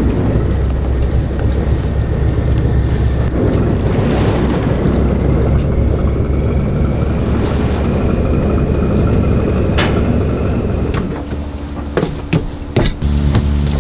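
Fishing boat's engine running close by, a steady low rumble with wind buffeting the microphone. Near the end come a few sharp knocks.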